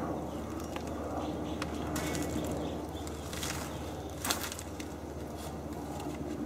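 A few short scraping strokes of a grafting knife slicing into a green mango stem, the clearest about three and a half seconds in, over a steady low hum, with birds faintly in the background.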